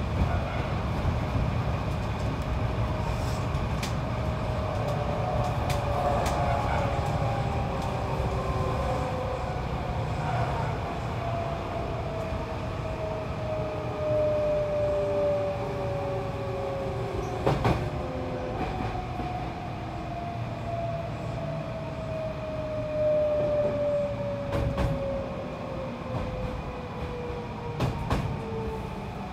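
Hankyu electric commuter train running on the rails with a steady rumble. Its motor whine falls slowly in pitch, a sign that the train is slowing down, and the wheels give a few sharp clacks over the rail joints.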